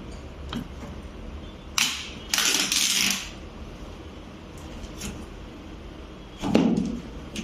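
Handling noise from a flat-screen TV panel being moved on a table: a couple of short crinkles of plastic packaging sheet about two to three seconds in, then a dull knock near the end as the set is bumped down.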